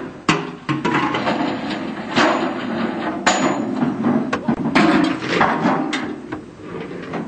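Aluminium Medium Girder Bridge components clanking and knocking as soldiers handle and fit them together: a run of irregular sharp metal strikes.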